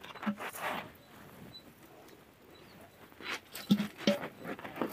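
Palmyra sprouts being set upright into an earthen clay pot: short dry knocks and rustles as the stiff sprouts tap against each other and the pot, a few near the start and a quicker run of them from about three seconds in.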